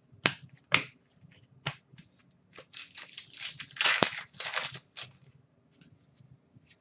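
A stack of trading cards being flipped and sorted by hand: three short, sharp card snaps in the first two seconds, then about two seconds of cards sliding and rustling against each other.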